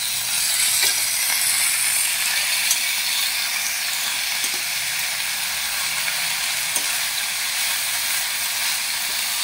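Ivy gourd slices sizzling in hot coconut oil in a metal pan while a metal spoon stirs and scrapes them, with a few light clinks of the spoon against the pan.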